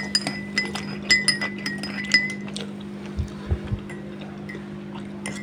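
Ceramic teacups and saucer clinking: a quick run of light, ringing clinks that stops about two and a half seconds in, followed by a few dull bumps, over a steady low hum.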